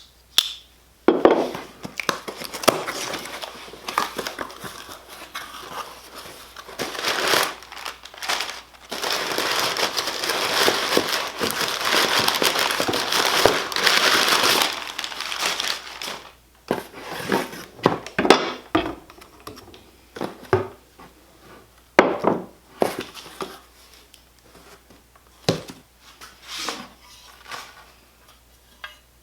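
Irregular crinkling and scraping handling noises with sharp clicks and knocks, including a continuous rough scraping stretch of about six seconds near the middle.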